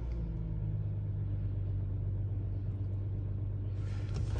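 Volkswagen Touareg TDI's 3.0-litre V6 turbodiesel idling steadily just after starting, on fresh oil after an oil change, heard from inside the cabin.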